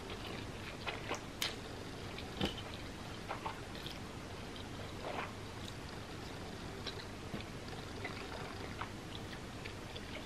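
Close-miked eating of spicy Shin ramen noodles: wet slurping and chewing, with scattered short clicks, most of them in the first half.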